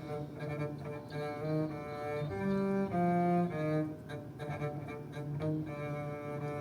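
Music played back over a car's upgraded audio system: an instrumental passage of cello and bowed strings holding a series of sustained notes, with no singing.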